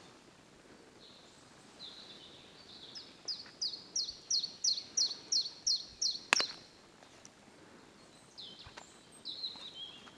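A songbird singing a run of about ten quick, evenly spaced high notes, each dropping in pitch, lasting about three seconds, with a few shorter high calls before and near the end. A single sharp click comes just after the run and is the loudest sound.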